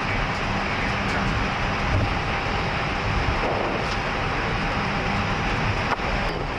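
Airbus A320 flight deck noise with the engines running on the ground: a steady rumble and hiss with a faint constant tone over it. A single sharp click sounds near the end.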